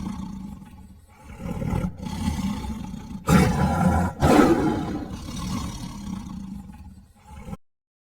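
A big cat roaring and growling in a series of rough, low bouts, the loudest about three and four seconds in, cutting off abruptly near the end.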